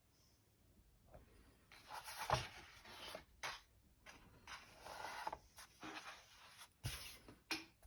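Rustling and scraping handling noises in two longer bursts, with a few sharp clicks and knocks in between, the loudest knock about two seconds in.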